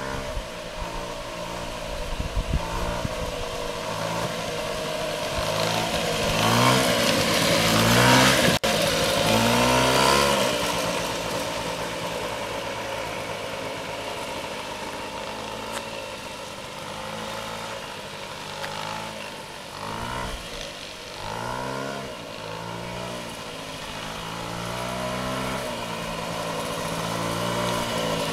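Small moped scooter engine running as it is ridden, its pitch rising and falling several times as the throttle is opened and eased off. It is loudest about a quarter of the way in and swells again near the end as the scooter comes closer.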